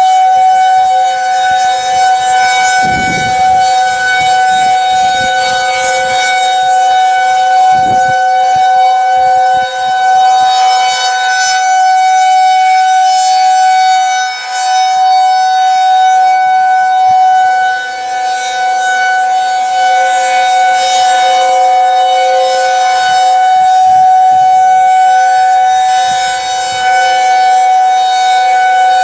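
Federal Signal 2001-SRNB outdoor warning siren sounding its steady alert signal: a loud, unwavering chord of two held pitches, with small swells and dips in loudness.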